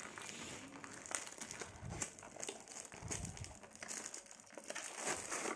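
Cardboard flashlight box and its packaging being opened and handled: light crinkling and rustling, with a few soft knocks as the contents are slid out of the box.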